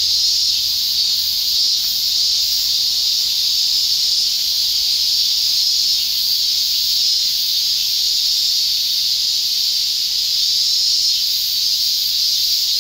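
Cicadas in a dense chorus, a steady high-pitched buzz that holds unchanged throughout.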